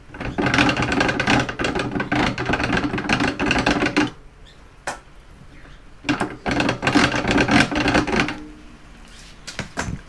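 Enerpat manual copper wire stripper being cranked while flat three-core household cable feeds through its flat cutter to slit the outer sheath. The clicking, rattling mechanical noise comes in two spells, about four seconds and then about two, with a pause between.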